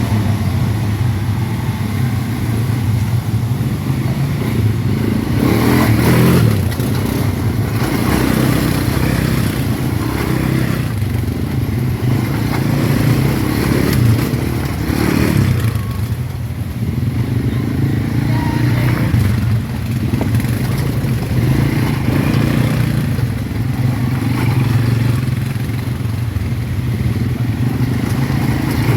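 ATV engines running off-road, revving up and easing off several times.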